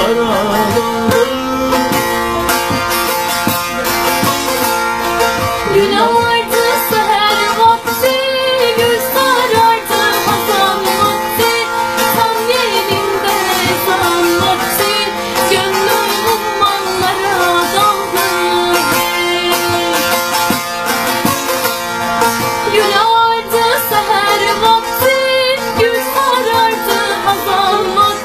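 Instrumental interlude of a Turkish folk song (türkü): a plucked-string lead melody over a full band accompaniment with a steady beat.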